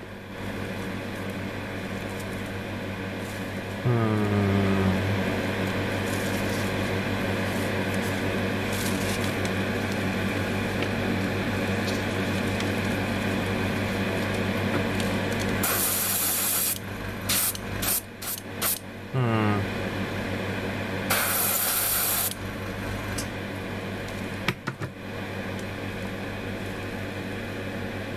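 Steady hum of a small electric motor with a second motor starting about four seconds in, its pitch settling downward, and again just past the middle. Several bursts of hissing air in the middle stretch: one longer, a quick run of short ones, then another longer one.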